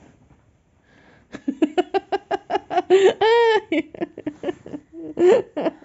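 A woman laughing heartily in quick, rapid bursts, starting about a second and a half in, with one drawn-out higher note in the middle.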